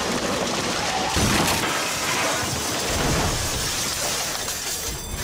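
Glass display cases shattering and merchandise crashing onto the floor: a continuous clatter of breaking glass and falling objects, loudest about a second in.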